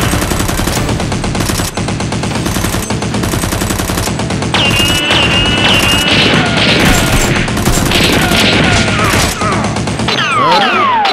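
Dubbed-in machine-gun sound effects: rapid, continuous automatic gunfire. Falling whistling tones come in about four and a half seconds in and again near the end.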